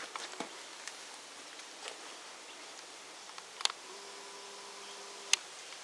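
Handheld camera handling noise: a few sharp clicks, and about four seconds in a steady hum that lasts about a second and a half and stops with a click.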